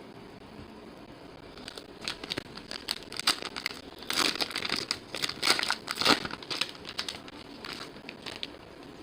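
Foil wrapper of a baseball card pack crinkling as it is torn open and handled: irregular crackles that start about two seconds in, are loudest in the middle and die away near the end.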